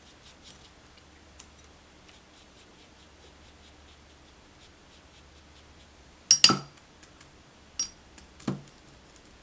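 Paintbrush clinking against a small glass water jar as it is rinsed: a loud, ringing double clink a little over six seconds in, then two lighter knocks over the next two seconds. Before that there are only faint soft ticks of brushwork.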